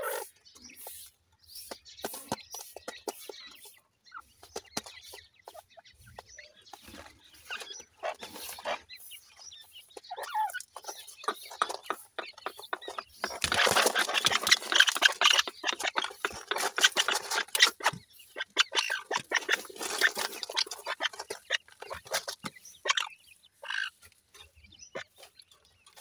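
Francolin hen clucking and chicks cheeping as they forage on gravel. In the middle comes a loud stretch of rustling and scratching close by.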